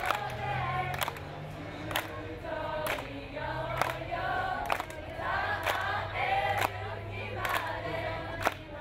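Music with several voices singing together over a low held tone, marked by a sharp percussive beat about once a second.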